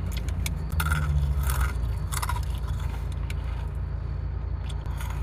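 Crunching and chewing on crisp sweet corn pretzel sticks, a scatter of small crackly crunches mostly in the first half, over a steady low hum.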